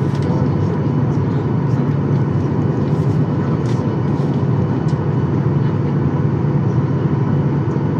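Cabin noise of a Boeing 737-800 taxiing: its CFM56-7B engines running at a steady low power, a deep hum with a faint whine above it, heard through the fuselage from a window seat over the wing. The pitch and level stay even, with no spool-up for the takeoff run.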